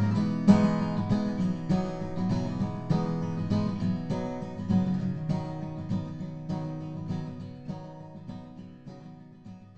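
Background music: a song's instrumental ending on strummed acoustic guitar, with no singing, fading out steadily.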